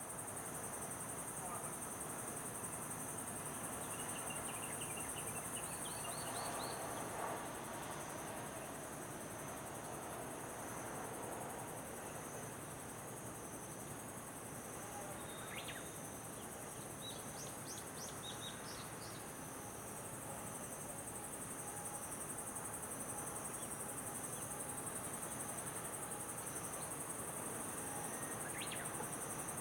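Insects chirping in a steady high-pitched drone, with a few short runs of bird chirps over a low background rumble.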